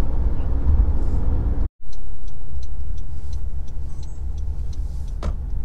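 Road and running noise inside the cabin of a moving Honda CR-V Turbo: a steady low rumble, cut off by a brief dropout about two seconds in before it carries on.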